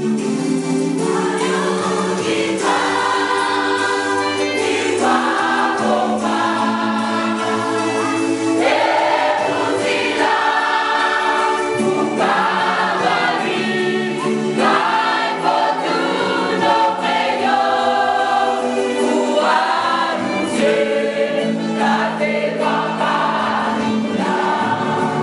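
Choir singing a gospel song, in phrases of a second or two over sustained low notes.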